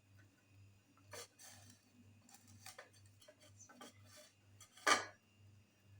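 Scattered light clinks and taps of a plate being handled as squeezed apple pulp is put onto it, with one louder knock about five seconds in, over a faint low hum.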